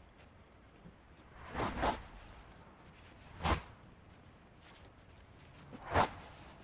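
Short hissing bursts from an aerosol can of caliper paint being sprayed: a quick double burst, then two single bursts about two seconds apart.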